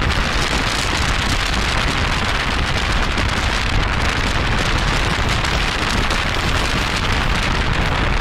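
Steady rush of wind and road noise from a moving car, with wind buffeting the microphone.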